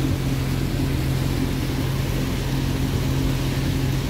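Pontoon boat's motor running steadily under way, a low even drone with the rush of wind and water over it.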